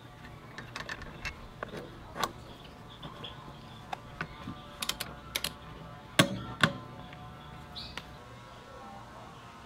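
Light metal clicks and clinks as the rear shock's lower mount is fitted to the scooter swingarm and its bolt is worked with a 12mm socket on a torque wrench. Two louder, sharp clicks come a little after six seconds in.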